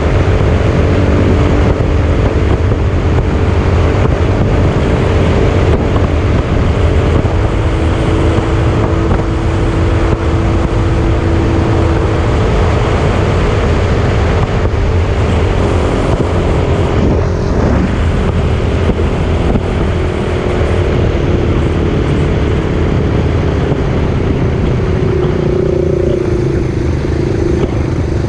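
Small engine of a homebuilt reverse trike running steadily at road speed under heavy wind noise. Near the end its pitch drops as the trike slows down.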